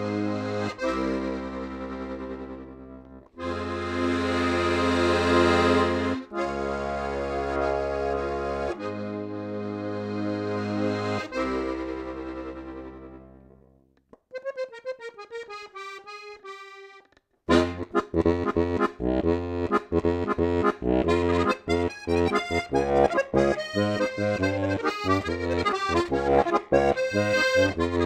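Steirische Harmonika, a Strasser diatonic button accordion, played solo. Slow held chords with deep bass swell and break off every two or three seconds, then die away about halfway through. A few soft, high single notes follow, and a few seconds later a fast, lively tune starts over an even bass-and-chord beat.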